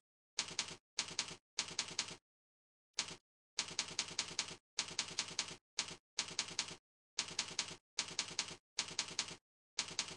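Software mouse-click sound effect, a short typewriter-like rattle of a few clicks, played over and over in quick succession with dead silence between each one.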